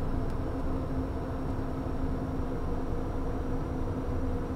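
Steady cockpit noise of a Cessna Citation CJ2+ twin turbofan jet on final approach with the landing gear down: airflow and engine noise with a steady low hum and a faint high whine.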